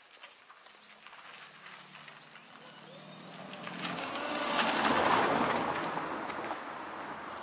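A car drives past, its engine and tyre noise growing louder to a peak about five seconds in and then fading away.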